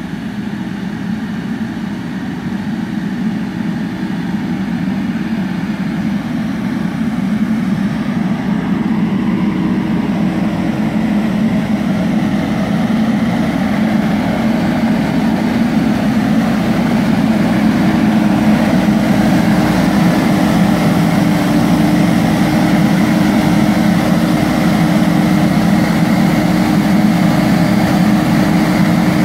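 A tractor-mounted turbine (airblast) sprayer at work: the tractor engine and the sprayer's fan give a steady drone with a held tone. It grows louder over the first half as the machine approaches, then holds steady.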